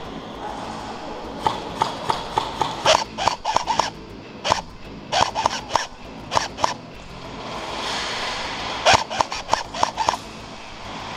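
Airsoft guns firing in several short bursts of rapid, sharp shots, with pauses between the bursts.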